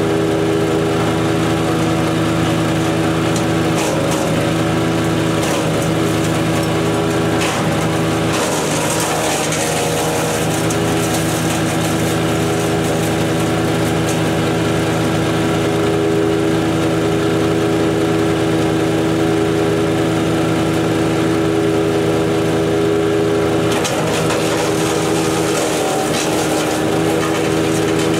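DK2 Power OPC506 wood chipper running steadily on its Kohler engine, chipping a one-inch dead cedar branch a few seconds in and another one-inch branch near the end. Each time, the engine's pitch wavers briefly under load and a burst of hissy chipping noise rises over it.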